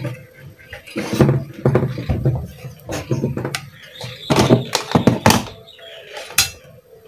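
Irregular knocks, thunks and short scrapes of a TV's main circuit board being shifted and handled on a wooden workbench.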